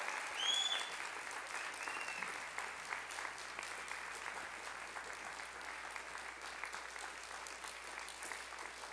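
Audience applauding, a dense patter of many hands clapping that eases slightly later on. Two brief high-pitched cheers rise over it, about half a second in and again about two seconds in.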